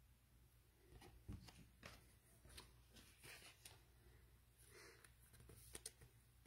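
Near silence, with faint scattered rustles and soft clicks of trading cards and pack wrappers being handled.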